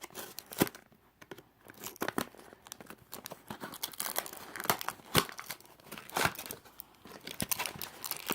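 Toy packaging being handled and opened: irregular crinkling and tearing with sharp crackles.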